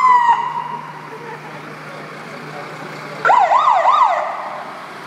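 Police siren: a falling tone that cuts off just after the start, then about three seconds in a short burst of three quick rising-and-falling wails lasting about a second.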